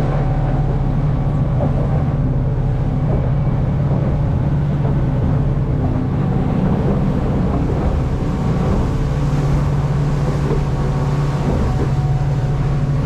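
Boat's engine running steadily at speed, a constant low drone, with wind and water noise from the hull, heard from inside the cabin.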